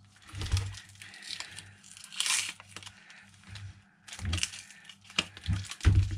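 Black heat-shrink wrap and tape on a 48 V battery pack crinkling and rustling as it is handled and turned, with scattered clicks and a few dull knocks in the second half as the pack is set down.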